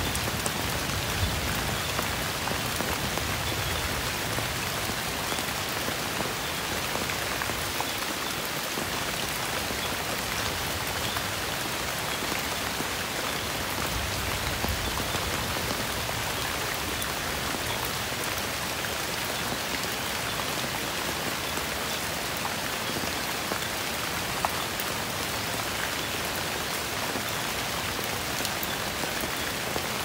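Heavy rain falling steadily on leaves, an even, unbroken hiss.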